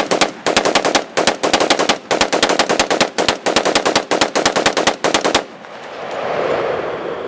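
AR-15 rifle with a flash suppressor fired in a rapid string of about two dozen shots over five seconds, then stopping. A rushing noise swells and fades afterwards.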